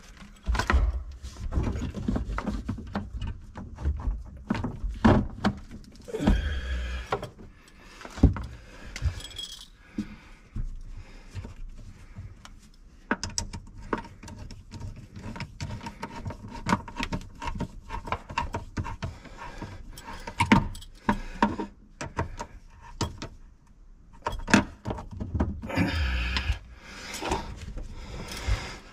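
Tools and hardware being handled during an installation: a long run of irregular clinks, clanks and knocks.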